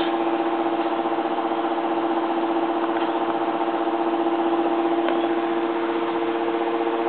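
A small motor running with a steady hum made of several fixed tones that do not change. Faint clicks come about three and five seconds in.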